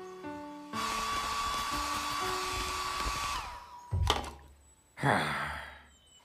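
A steady electric motor whir, like a small household appliance, runs for under three seconds and then winds down. A sharp thunk follows, then a short hissing whoosh.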